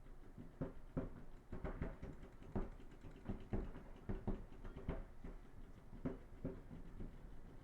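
Paintball markers firing on the field: scattered sharp pops, a few a second and irregular, over a low steady hum.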